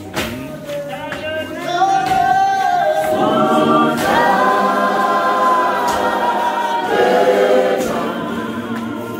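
Church congregation singing a hymn unaccompanied, men's and women's voices together in harmony, holding long notes. The singing swells louder about two seconds in.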